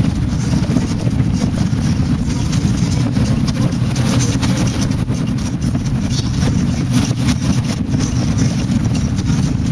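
Motorboat running at speed: a steady low engine and hull rumble, with wind buffeting the microphone.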